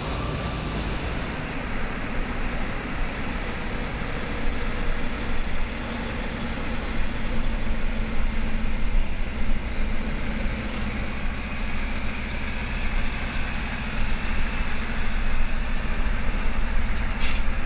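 Diesel engine of a car-carrier semi-truck running steadily, with an even low throb that grows plainer in the second half.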